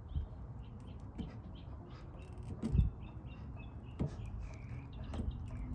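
Small birds chirping repeatedly in the background, with a few dull knocks from handling close by, the loudest a little before three seconds in.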